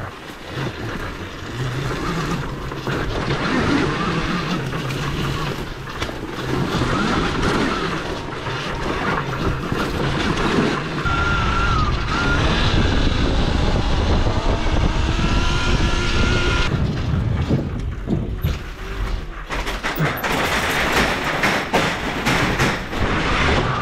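Home-made electric dirt bike with a Zero ZF75-7 motor being ridden: rushing wind and tyre noise, with a thin high whine from the electric motor that rises and dips from about a third of the way in until past the middle.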